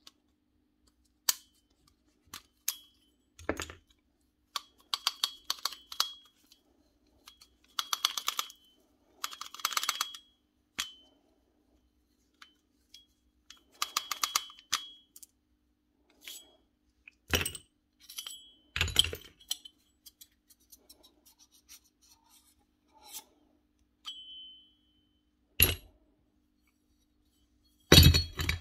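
Metal parts of a Bosch GBH 8-45 D rotary hammer's spindle assembly (rings, washers and bearings) clinking and rattling as they are worked off by hand, some with a brief ring. A few heavier knocks come as parts are set down on the workbench, the loudest near the end.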